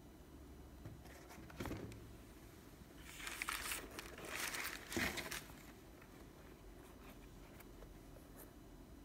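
Tissue paper crinkling and rustling as a sneaker is handled in its cardboard shoebox, loudest for a couple of seconds in the middle, with a soft knock a little earlier.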